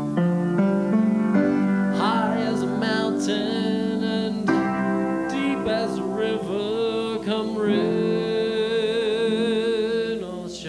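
A solo voice singing a slow jazz ballad over piano chords, sliding between notes and ending the phrase on a long held note with a wide vibrato.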